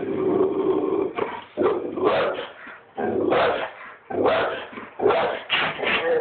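A dog barking and yipping in quick bursts while it reacts to animals on a TV, with whining between the barks.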